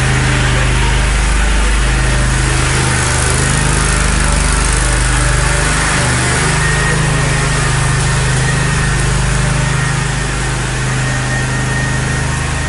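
Ride-on lawn mower's small gasoline engine running at a steady speed.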